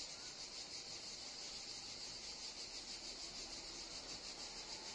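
Cicadas singing: a steady, high-pitched buzzing drone with a fast, even pulse.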